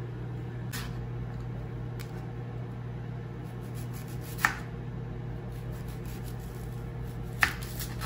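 Kitchen knife slicing through tomato and onion onto a bamboo cutting board, with a few sharp taps of the blade on the board. The two loudest taps come around the middle and near the end. Under them is the steady low hum of a microwave oven running.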